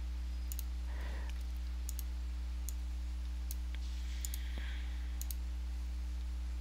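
Computer mouse button clicks, several single sharp clicks spread a second or so apart, as files are handled in WinRAR. A steady low electrical hum sits underneath.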